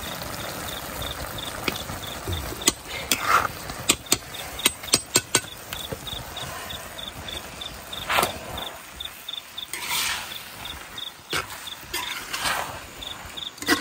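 A cricket chirping in an even, steady pulse. A quick run of sharp knocks about three to five seconds in is louder, and a few short rustling swishes follow later.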